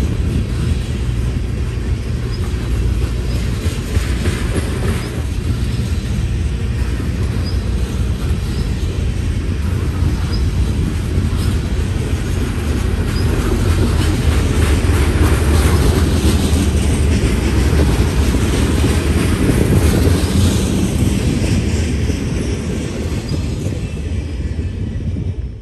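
Freight train of refrigerated boxcars and covered hoppers rolling past close by: a steady rumble of steel wheels on the rails, growing louder in the middle, with faint short high squeaks about once a second. The last car passes near the end.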